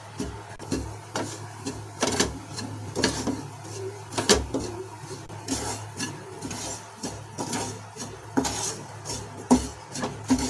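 Wooden spatula scraping and knocking against a nonstick pan as it stirs ground coriander roasting in ghee, in irregular strokes about once a second.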